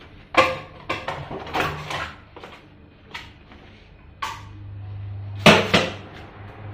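Kitchen clatter of cookware and cupboards being handled: about six sharp knocks and bangs, the loudest near the start and about five and a half seconds in. A steady low hum sets in about four seconds in.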